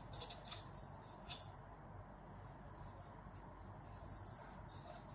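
Faint rubbing of a cotton swab along the brass tubes of a baritone's third valve slide, with a few light clicks in the first second and a half.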